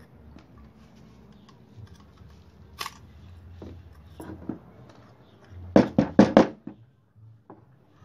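Small metal clicks and taps from the brush holder and end plate of a car radiator fan motor being handled, its carbon brushes worn away. About six seconds in come four sharp knocks in quick succession.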